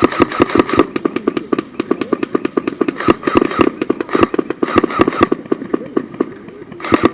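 Airsoft guns firing in rapid bursts of sharp pops, several shots a second, with short pauses between bursts.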